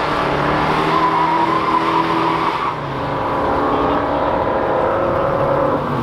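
Drag racing car engines running at high revs, their pitch held fairly steady, with tire squeal over the top. The sound dips briefly about three seconds in.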